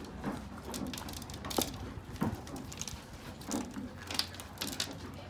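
A horse chewing grain, a run of irregular crunches and clicks.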